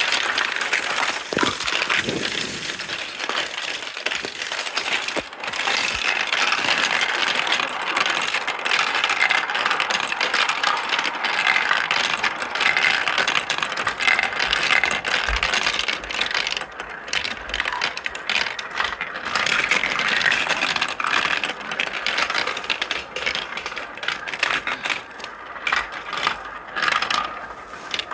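Many marbles rolling and clattering through a marble run, heard up close from inside the structure: a dense, continuous rattle of clicks and knocks.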